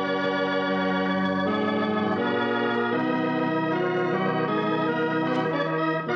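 Organ music cue opening an act of a radio drama: sustained chords at a steady level, the chord changing every second or so, starting abruptly.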